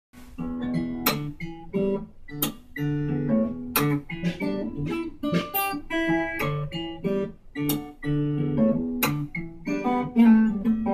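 Taylor 514ce acoustic guitar, solid cedar top with mahogany back and sides, played fingerstyle: a flowing run of picked notes and chords, with several sharp strummed accents that ring on between them.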